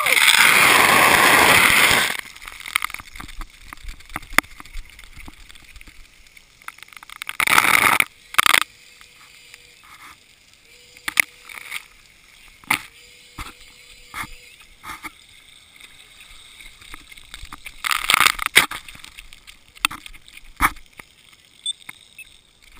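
Splash-pad water cannons spraying, with water rushing and splashing over the camera in loud bursts: one at the start lasting about two seconds, another about eight seconds in and a third about eighteen seconds in. Between the bursts come small drips, knocks and clicks.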